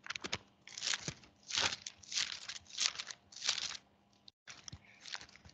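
Bible pages being turned and rustled by hand while looking up a passage: a run of crinkling paper swishes, about one every half second, with a brief pause near the end.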